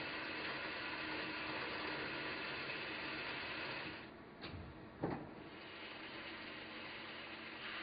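CNC lathe running with a steady hiss while a gold-coated drill cuts a center hole in the spinning bar. About four seconds in the noise drops as the tool turret indexes, with a dull thud and then a sharp clunk, the loudest sound, as the turret locks on the next tool. A lower steady hiss follows.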